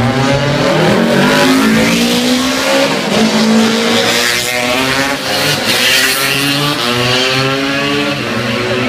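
Classic racing motorcycle engines running hard as bikes pass close, the engine pitch climbing and dropping back several times. More than one engine is heard at once.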